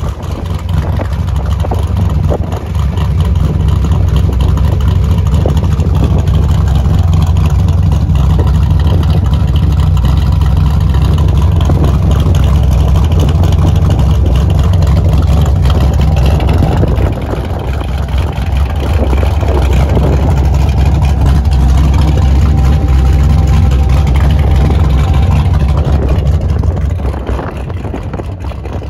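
406 cubic-inch small-block Chevy V8 in a Chevrolet Nova idling with a steady, loud low exhaust rumble. The loudness dips briefly a little past halfway and falls off near the end.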